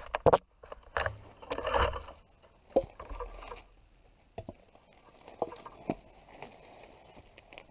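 Sharp wooden knocks and thuds from splitting arbutus firewood with a double-bit axe, with a brief scrape and rattle of wood between the blows. The loudest knock is just after the start, and quieter ones follow irregularly.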